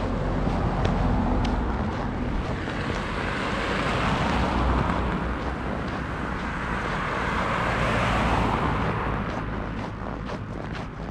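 Cars driving past on a snow-covered road, their tyre and engine noise swelling and fading twice, about four and eight seconds in. Near the end, short crunching footsteps on snow come through as the traffic noise falls away.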